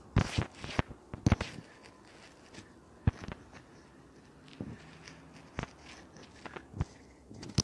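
Footsteps in fresh snow: irregular steps, several close together in the first second and a half, then sparser ones with gaps between them.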